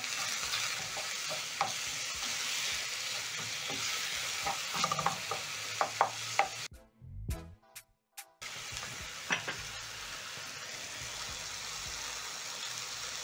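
Diced tomatoes and onions sizzling in hot oil in a non-stick frying pan while a wooden spoon stirs in the ground spices, with scrapes and taps of the spoon against the pan. The sound drops out briefly about seven seconds in, then the steady sizzling resumes.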